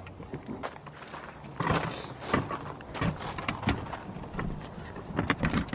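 Irregular clicks, knocks and rustles of hands working a car seat and its mounting hardware inside a car.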